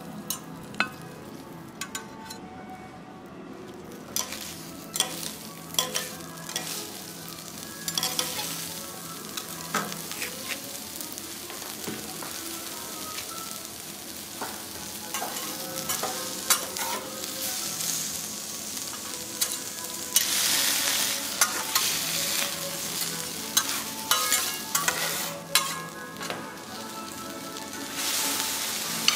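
Food sizzling on a teppanyaki iron griddle, with frequent sharp clicks of metal spatulas against the plate. The sizzle swells about two-thirds of the way through and again near the end.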